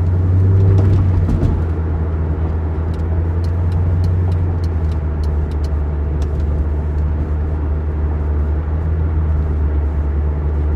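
Steady low drone of a C5 Corvette's V8 engine and road noise heard inside the cabin while driving, swelling slightly about a second in before settling.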